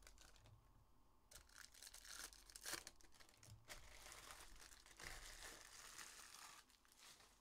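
Faint crinkling and tearing of foil Upper Deck hockey card pack wrappers as packs are ripped open and handled.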